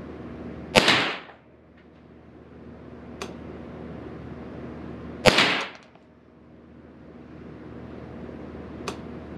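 Two shots from a Derya TM22 semi-automatic .22 LR rifle, about four and a half seconds apart, each a sharp crack with a brief echo off the walls of an indoor range. Two much fainter sharp clicks fall between and after the shots.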